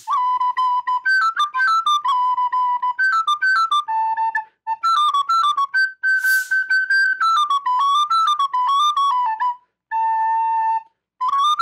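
Recorder playing a solo melody line of quick notes with small slides into the notes in Irish-flute style, broken by a few short breath gaps.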